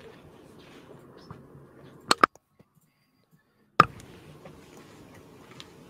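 Computer mouse clicks: a quick double click about two seconds in and a single click near four seconds, over a faint steady room hiss that cuts out between them.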